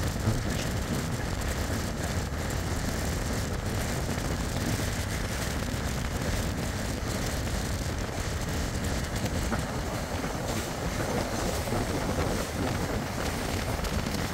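Indian Railways sleeper coach running along the track: a steady low rumble of wheels on rails, with one sharp knock just after the start.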